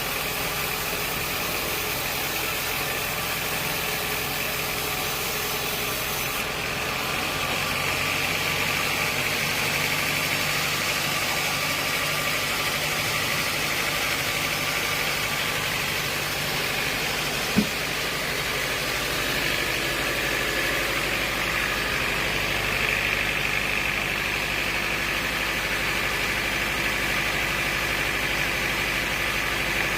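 Sawmill machinery running steadily with an even engine-like hum, and one sharp click a little past halfway.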